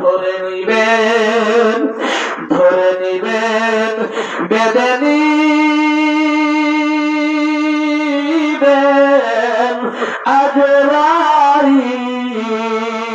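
A man singing unaccompanied into a microphone in the long-drawn melodic chant of a Bengali waz sermon. About five seconds in he holds one note for some three seconds.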